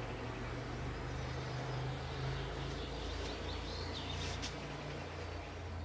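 Outdoor ambience: a steady low rumble with a few short bird chirps about three to four and a half seconds in.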